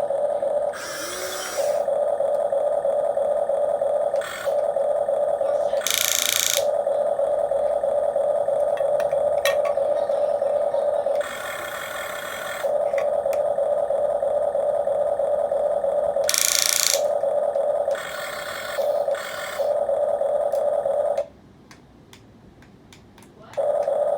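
Small electric gear motors of a Huina 1550 RC excavator whining steadily, broken now and then by short spells of higher, rasping gear noise. The whine stops for about two seconds near the end, then starts again.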